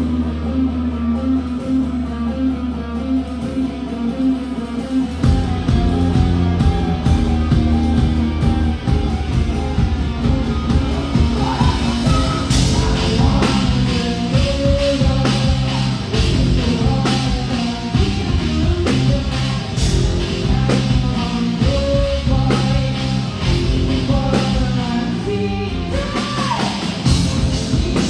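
Live rock band playing loud: an electric guitar riff, with the drums and bass coming in about five seconds in.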